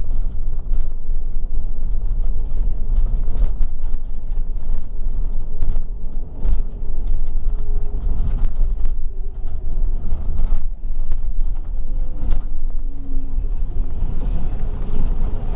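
City bus driving, heard from inside the cabin: a steady low engine and road rumble with frequent short rattles and knocks from the body, and a faint whine that rises and falls in pitch now and then.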